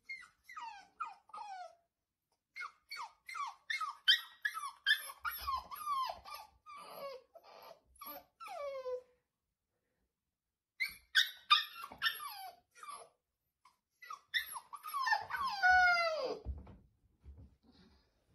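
Brown spaniel puppy whining: many short, high calls, each falling in pitch, in quick runs broken by two pauses, ending in a few longer, louder falling whines.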